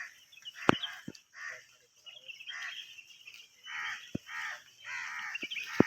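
Crows cawing over and over in harsh calls of about half a second each, with a few sharp clicks between them.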